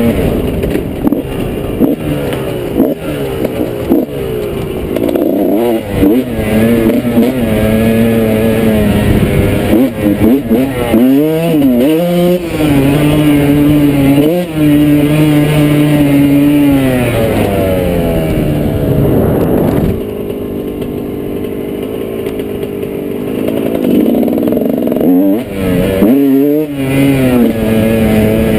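Dirt bike engine running on a trail ride, its pitch rising and falling again and again as the throttle opens and closes. It eases to a quieter, lower note for several seconds about two-thirds of the way through, then picks up again.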